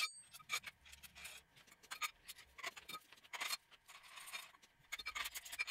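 Faint, scattered clicks and light knocks of aluminum arm tubes, bolts and washers being handled as the arm is fitted into its brake-rotor base.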